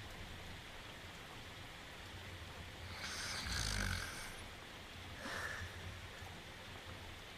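Cartoon dog snoring over steady rain: one deep snore about three seconds in, then a shorter, hissing breath out about two seconds later.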